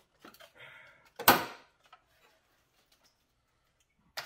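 A cover being worked loose by hand from the front of an engine: light scraping and rattling, then one sharp, loud clack about a second in as it comes free, and a click near the end. The cover guards the crank angle sensor and the cam and crank sensor wires.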